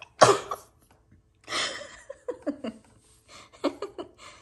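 A person sneezes once, sharp and loud, then laughs in a few short bursts.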